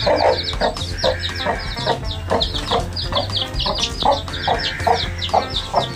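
Chicks peeping continuously in quick, high, falling notes, over a desi hen clucking in short calls a few times a second, as a mother hen does when leading her brood to food.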